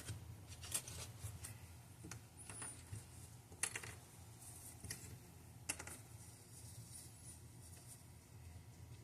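Small, sharp clicks and taps of hand tools against watch parts, a handful of them scattered irregularly over a low steady hum.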